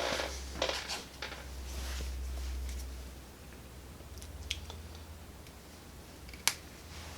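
Handling noise of hand wiring work on wires and terminals: a few light clicks and snips, the loudest a sharp click about six and a half seconds in, over a steady low hum.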